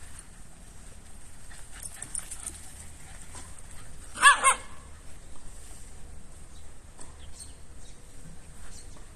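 A dog gives two short, quick barks about four seconds in, a play bark among dogs chasing each other.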